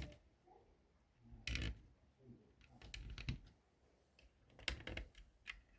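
Plastic Lego pieces clicking and clattering as they are handled and pressed together, in a few short clusters of clicks.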